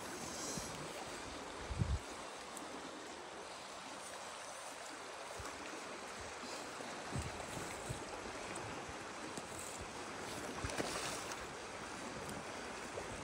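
Steady rush of a fast-flowing river current over riffles, with a few short low thumps.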